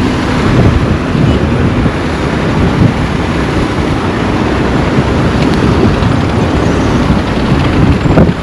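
Steady road traffic noise: vehicles running along the road, with no single distinct event standing out.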